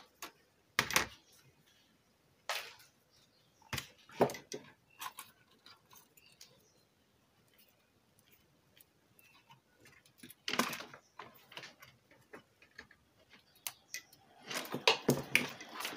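Side cutters snipping thin speaker wires on a car stereo's wiring harness: a series of sharp, separate clicks a second or more apart, with a quicker run of clicks and rustling near the end as the wires are handled.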